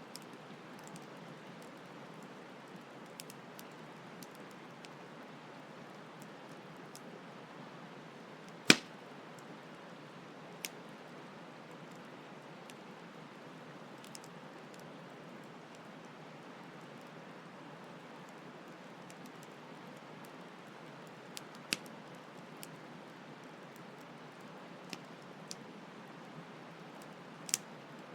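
Campfire crackling with scattered sharp pops, the loudest about a third of the way in and a few more near the end, over a steady hiss of flowing stream water.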